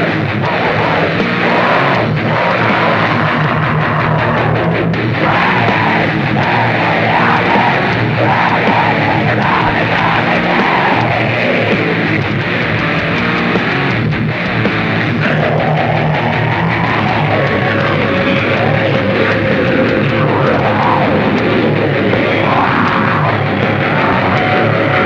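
Lo-fi black noise music from a cassette release: a dense, distorted wall of sound at a constant loud level, dull and cut off in the highs. A long held tone comes in past the middle and runs on to the end.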